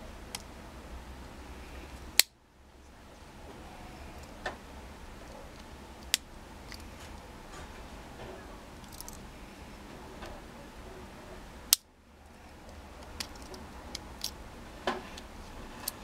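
Sharp metallic clicks of a Victorinox Climber Swiss Army knife's tools being opened and closed, the blades and implements snapping against their backsprings. Two loud snaps come about two seconds in and again about ten seconds later, with softer clicks and handling between.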